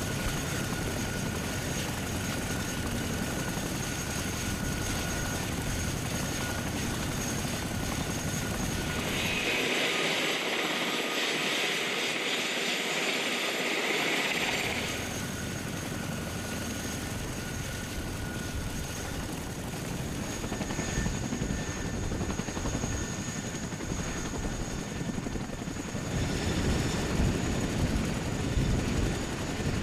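Boeing CH-47 Chinook helicopter running on the ground, its tandem rotors turning and twin turboshaft engines whining, across several cuts. For a few seconds in the middle the low rotor noise drops away and a high hissing whine is heard alone; near the end the rotor beat comes back louder and uneven.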